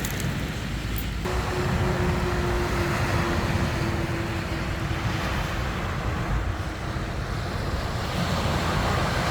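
Sea waves washing onto a beach, with wind rumbling on the microphone. A steady hum joins about a second in and fades out later.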